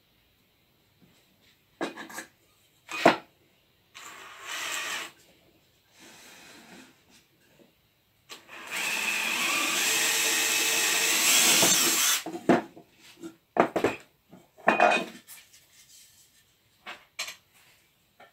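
Cordless drill boring a hole through a wooden vice jaw: a brief run about four seconds in, then a steady run of about three and a half seconds. Knocks and clatter of the board and tools being handled come before and after.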